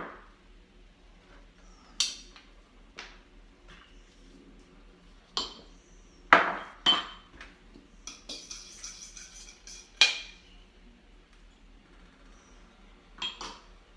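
Measuring spoons and a fork clinking and tapping against a plastic mixing bowl and countertop while dry ingredients are measured and mixed: sharp knocks spaced a few seconds apart, with a short rustling scrape a little past the middle.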